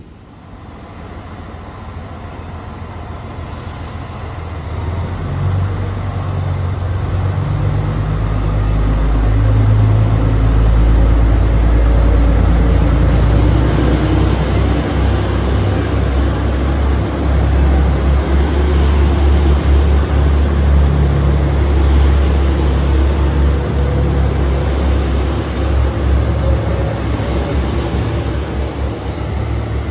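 Chizu Express HOT7000 series diesel express train pulling into the platform. Its diesel engine rumble grows over the first ten seconds, then stays loud as the cars roll past and the train slows.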